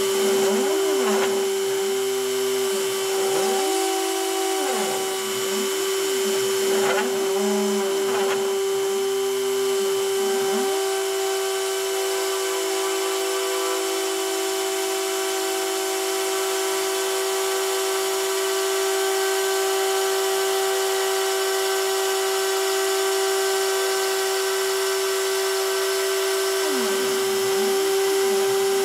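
Rotary-tool spindle on an OpenBuilds C-beam CNC machine whining at one steady pitch as it cuts into cardboard. Over it, the stepper motors whine up and down in pitch over and over as the machine makes a run of short moves. About ten seconds in they settle into one steady pitch for a long straight feed, and the up-and-down moves come back near the end.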